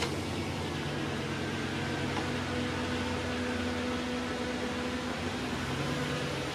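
Vehicle engine idling steadily just after being started, heard from inside a car cabin, with a steady hiss over it.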